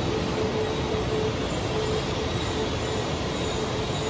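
E4 series Max double-decker Shinkansen train moving slowly alongside the platform: a steady rolling rumble with a faint hum that pulses on and off.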